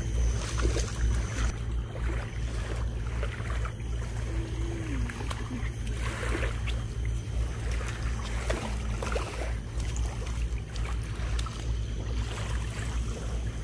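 Wind buffeting the microphone in an uneven low rumble, over faint lapping and splashing of shallow water at the shoreline.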